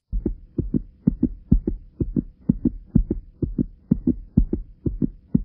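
Heartbeat sound effect: a fast, steady lub-dub of paired low thumps, about two beats a second.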